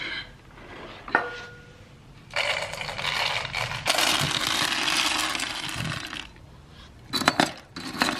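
Dry dog kibble poured from a metal scoop into a slow-feeder dog bowl: a dense rattle lasting about four seconds. A single ringing clink comes about a second in, and a few quick clicks near the end as the last pieces are shaken out of the scoop.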